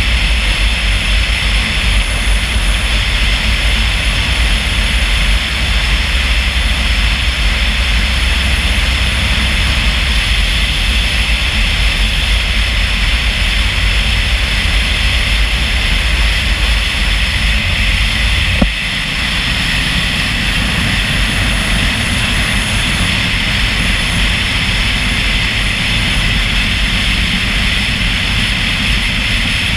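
Steady driving noise of a vehicle moving at road speed: a deep rumble under a hiss. A single sharp click comes a little past halfway, after which the low rumble is weaker.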